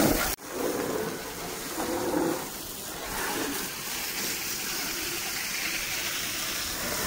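Water from a hose spraying and splashing onto a mini tractor's bodywork and tyres: a steady gushing hiss, briefly broken about a third of a second in.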